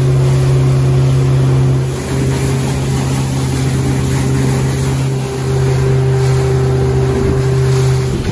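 Small fishing boat's outboard motor running steadily at speed through choppy water, with water rushing and spraying past the hull. The engine note and level dip briefly twice as the boat meets the waves.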